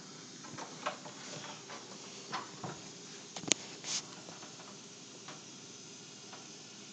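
Aerosol can of insecticide spraying in a faint steady hiss, with scattered small clicks and taps and one sharper click about three and a half seconds in.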